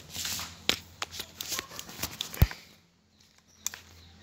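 Handling noise as the recording phone is moved and set down: rustling and scattered sharp clicks, with one loud knock about two and a half seconds in.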